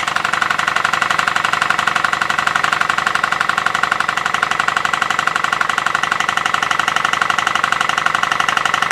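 PMR 1880's steam drilling engine, a 1-inch-bore double-acting horizontal model steam engine, running unloaded on steam from its boiler: a rapid, even chuffing of exhaust steam, two beats to each turn of the flywheel.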